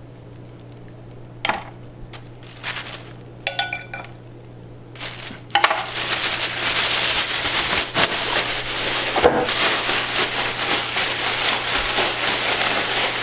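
Plastic grocery bag crinkling and rustling as pieces of yellowtail snapper are shaken inside it in breading powder. The shaking starts about five and a half seconds in and goes on steadily; before that there are only a few light taps and clicks.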